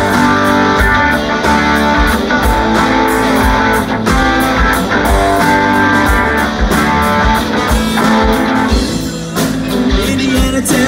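Live rock band playing an instrumental passage: electric guitars over bass and a steady drum beat, with no singing.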